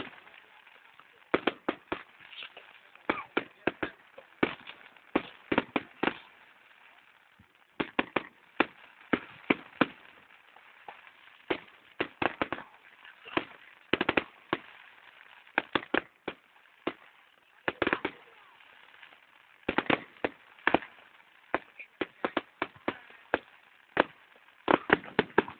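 Fireworks bursting in an irregular string of sharp bangs, some in quick clusters, with a short lull about six seconds in.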